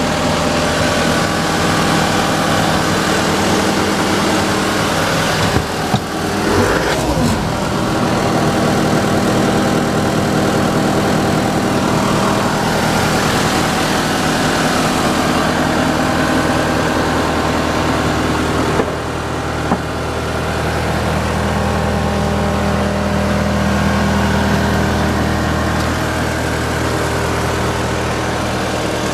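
John Deere 333E compact track loader's engine running steadily, with a brief glide in pitch about six or seven seconds in and a single knock a little past the middle.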